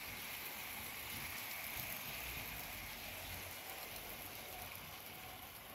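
Model train wagons rolling along garden railway track, a steady rattling clatter of many small wheel ticks that fades near the end.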